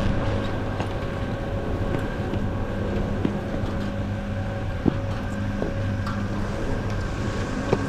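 Steady low mechanical hum of a running engine or motor, with a few faint ticks and knocks.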